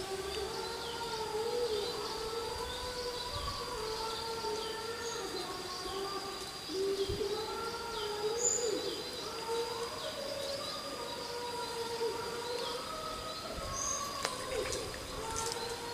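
Birds chirping repeatedly, with a thin steady high insect-like tone, over a louder continuous low tone that wavers and steps up and down in pitch.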